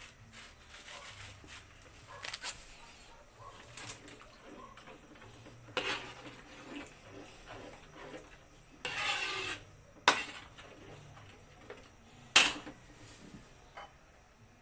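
Metal ladle clinking and scraping against a steel wok as a cream sauce is stirred: a handful of sharp, separate clinks, with a longer scrape about nine seconds in.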